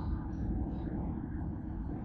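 Loaded container cars of a freight train rolling past, a steady low rumble of wheels on rail.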